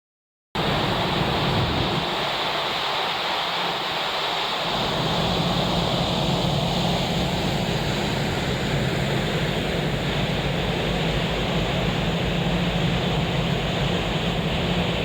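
Steady rush of wind and sea water with a low, steady hum underneath, as heard aboard a ferry under way. It cuts in abruptly about half a second in.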